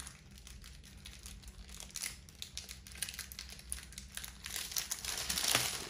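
Paper and packaging from a stationery kit crinkling and rustling as they are handled, quiet at first and louder near the end.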